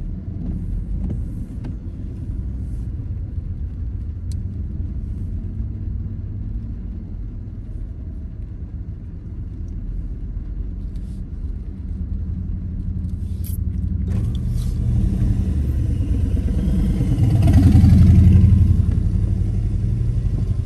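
Low, steady rumble of a car's engine and road noise heard from inside the cabin in slow traffic on a wet road. From about two-thirds in, a hiss builds and another vehicle passes close by, loudest near the end.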